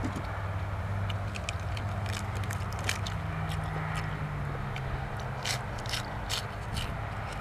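A person chewing and biting food close to the microphone, with scattered sharp wet clicks, over a steady low hum.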